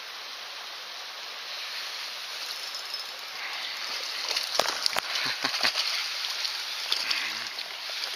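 A steady rush of flowing water. About halfway through comes a quick flurry of splashes and knocks as a hooked rainbow trout thrashes at the surface beside the float.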